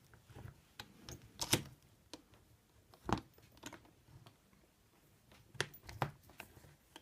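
Scattered clicks and light knocks as a tubular bicycle lock is handled and clamped in place, the two loudest about a second and a half and three seconds in.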